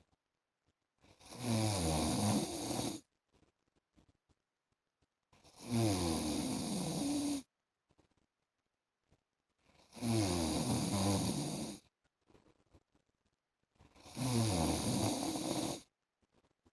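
A man snoring in deep sleep: four long snores of about two seconds each, coming roughly every four seconds, with near silence between them.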